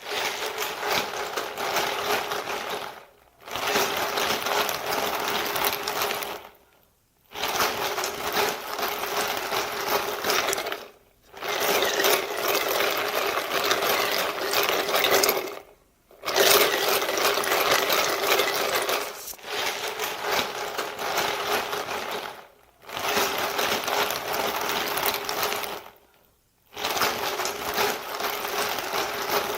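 Ice cubes clinking and rattling against each other and the sides of a cup of iced coffee, in repeated spells of a few seconds with short pauses between them, about seven in all.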